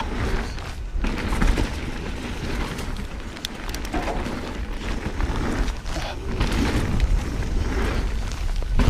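Wind buffeting the microphone as a 2020 Ibis Ripley mountain bike rolls down a dirt trail, with a steady low rumble and the hiss and rattle of tyres over the ground.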